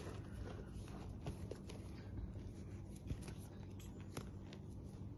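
Faint handling of a product box: scattered light taps and rustles, the clearest about a second in and again near three and four seconds, over a steady low hum.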